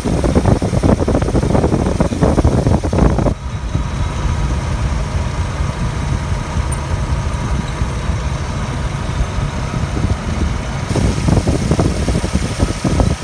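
2002 Chevy S10's engine idling with the squealing noise its owner cannot trace: grinding on a cold start, turning to a chirp once warm. For about the first three seconds and again near the end, a rough crackling noise lies over the idle.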